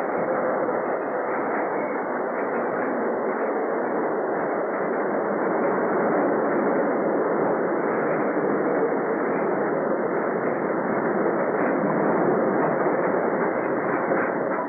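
Steady roar of a Third Avenue El elevated train running over its steel structure, a dense rumble with a faint steady whine held through it.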